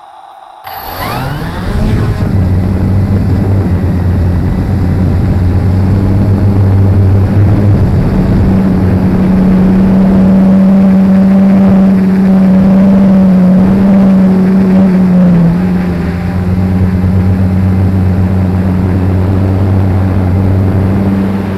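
Quadcopter's electric motors and propellers spin up with a rising whine a little under a second in. A loud, steady buzzing hum follows as the drone lifts off and flies, its pitch shifting slightly now and then, heard from the camera mounted on the drone itself.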